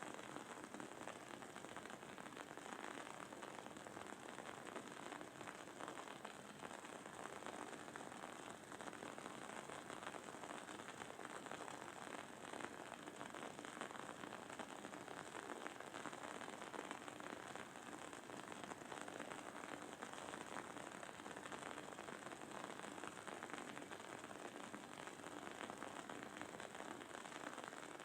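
Wooden candle wick burning with a faint, steady crackle, a dense run of tiny pops and sizzles.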